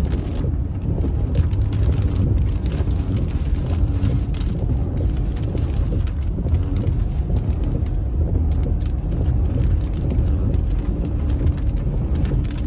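Vehicle driving through a thunderstorm, heard from inside the cabin: a steady low rumble of road and strong wind noise, with many sharp ticks of rain striking the body.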